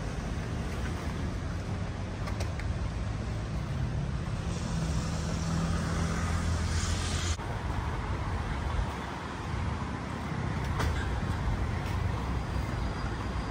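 Road traffic: motor vehicle engines running with a steady low rumble, and a hiss that cuts off suddenly about seven seconds in.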